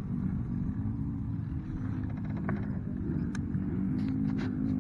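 Off-road racing engines running around a dirt track at a distance, a steady low drone, with a few faint clicks in the second half.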